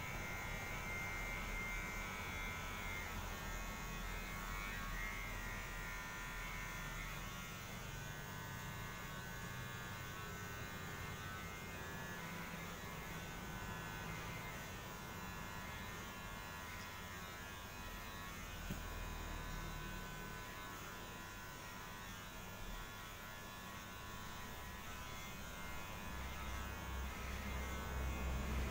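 Small battery-powered vibrating pen tool with a thin wire tip buzzing steadily as it is worked around the eye, with low rubbing and handling sounds underneath that grow louder near the end.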